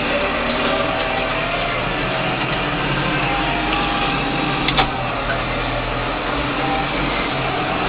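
Tractor engine running steadily, with one sharp click a little under five seconds in.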